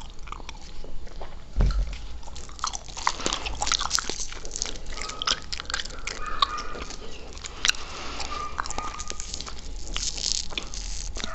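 Close-miked ASMR mouth sounds while chewing gum: a dense run of wet lip and tongue clicks and smacks, with brief squeaks, and a low thump about one and a half seconds in.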